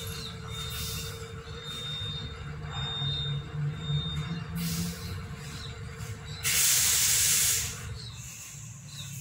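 A steady low hum with a thin, high whistling tone that comes and goes and a few small chirps, then a loud hiss lasting just over a second near the end.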